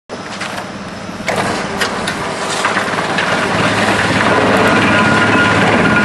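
Drum wood chipper running under load as wood is fed in: a steady machine drone with frequent sharp cracks of wood being chipped. It gets suddenly louder about a second in, then keeps building.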